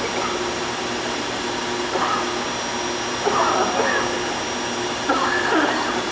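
Gun drill machine running with its coolant flowing: a steady mechanical hum and hiss. Twice a brief louder sound rises over it, about three and five seconds in.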